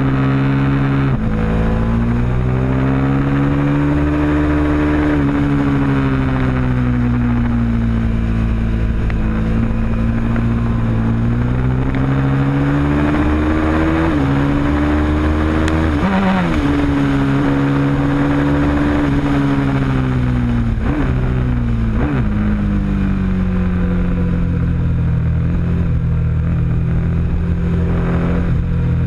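Ducati 899 Panigale's L-twin engine at speed on track, its revs rising and falling through the corners with several sudden breaks in pitch as it shifts gear.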